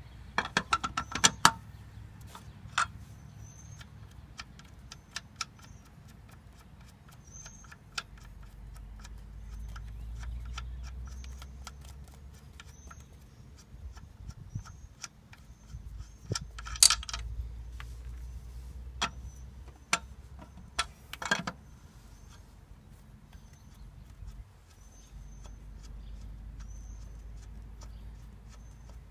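Scattered metallic clicks and clinks of car lug nuts being spun off the wheel studs by hand and handled. There is a cluster of clinks at the start and sharper ones later, over a low, uneven rumble.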